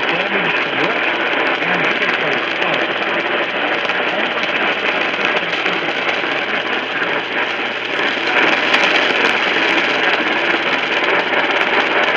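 Radio static: a steady hiss from a receiver on a weak signal, with a faint voice buried under it in the first few seconds. The hiss grows a little louder about two-thirds of the way through.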